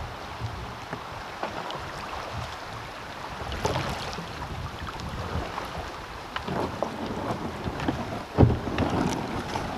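Kayak paddle strokes splashing and dripping in shallow river water, with wind buffeting the microphone. A single thump near the end as the paddler takes hold of the neighbouring plastic kayak.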